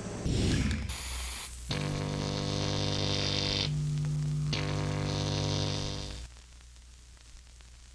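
Short outro music sting for a news segment: a whoosh about a second in, then a held chord that changes briefly in the middle and cuts off about six seconds in, leaving a faint low hum.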